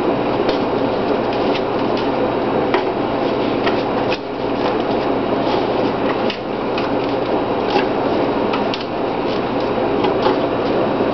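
Paper name slips being folded and dropped into a plastic coffee canister, giving light crinkles and scattered small taps over a steady background hum.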